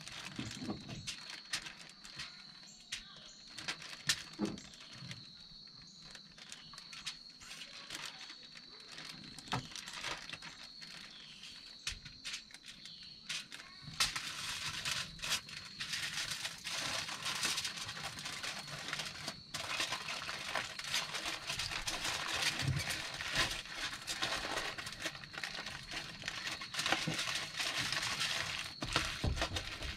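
Aluminium foil and a plastic bag crinkling and rustling as food is handled, with small clicks. About halfway through the crinkling becomes dense and continuous as the foil is folded and crimped around the food.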